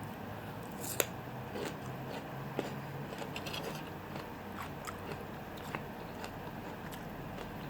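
Close-miked chewing and biting of food, with short crunches and mouth clicks; the sharpest crunch comes about a second in.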